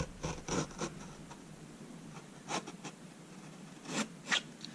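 Hand edge-banding trimmer pushed along the board edge, its little blades shaving the overhanging wood banding on both sides in short, faint scraping strokes: several in the first second, then a couple more about halfway and near the end.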